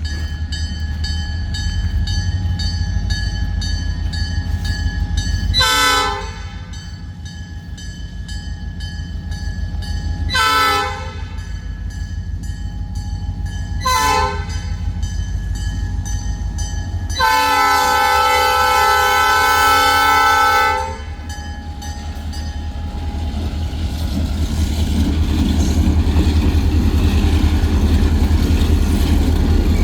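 Diesel locomotive horn sounding four chord-like blasts, the last held about four seconds, in the long-long-short-long pattern of a grade-crossing warning. A steady low train rumble runs underneath and grows louder over the last several seconds as the train passes.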